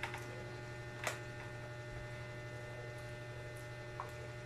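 Steady low electrical hum, with a few short clicks from eating with the hands, the sharpest about a second in.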